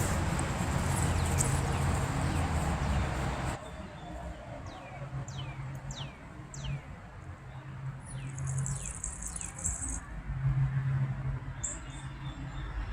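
A rushing noise for the first three and a half seconds that cuts off suddenly, then a songbird giving a run of short downward-sliding chirps, followed by a brief high buzzy trill.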